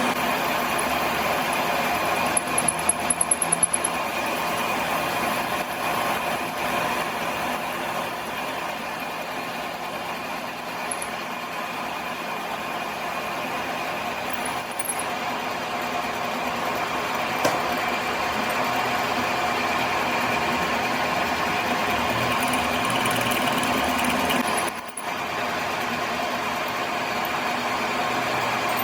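A machine motor running steadily, with a quick run of sharp ticks about three seconds in and a brief drop in the sound near the end.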